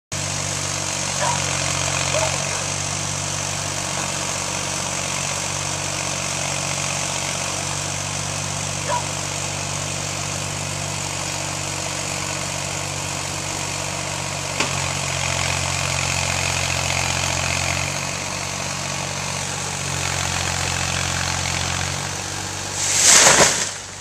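Ford 420 backhoe's diesel engine working under load, its throttle rising and falling every few seconds as the bucket pushes against a tree. Near the end comes a loud rushing crash.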